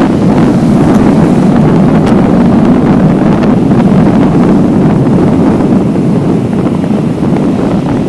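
Wind buffeting the microphone as a steady, loud rumble over small sea waves breaking and washing up a sandy beach.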